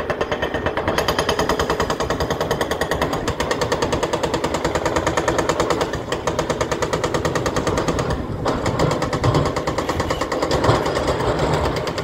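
Excavator-mounted hydraulic breaker (hoe ram) hammering on ledge rock in rapid, even blows, breaking up the bedrock, with a brief let-up about eight seconds in.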